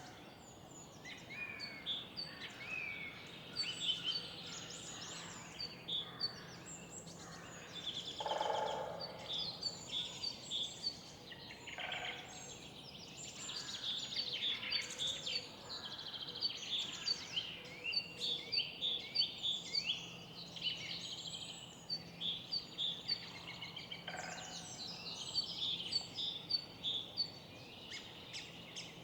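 Many birds chirping and singing, short repeated calls and trills overlapping the whole time, over a faint steady low hum.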